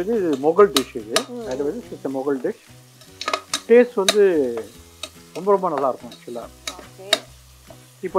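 Metal ladle stirring and scraping an onion-tomato mixture frying in a pressure cooker: the ladle grates with wavering squeals and clinks sharply against the pot over the sizzle of the oil.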